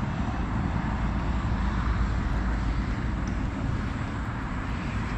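Steady low rumble with a hiss above it, outdoor background noise with no distinct event standing out.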